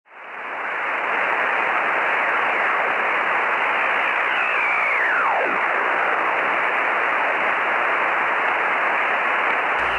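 Shortwave radio receiver hiss and band static, fading in over the first second. About halfway through, a whistle falls steeply in pitch from high to low as a carrier is tuned across, with fainter whistles sliding alongside.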